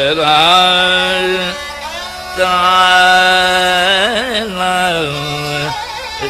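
Male dhrupad singer's voice singing an unaccompanied-style alap in long held notes. It glides up into a sustained note, pauses briefly, then holds another long note with a quick wavering ornament near the middle.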